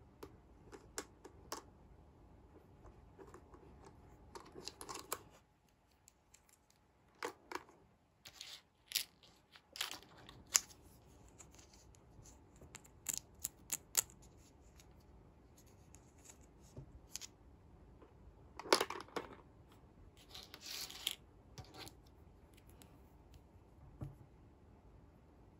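Small hard plastic toy pieces handled by fingers, with scattered sharp clicks and taps and a few short scratchy rustles, the loudest about two-thirds of the way through.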